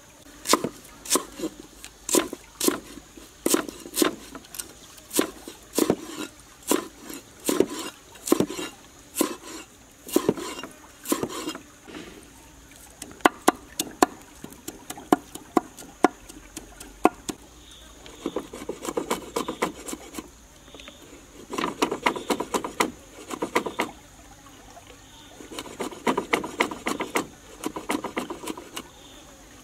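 Cleaver chopping on a wooden cutting board through ginger and red chilies. For about the first twelve seconds it gives single sharp knocks about two a second, and from the middle on it comes in bursts of rapid chopping.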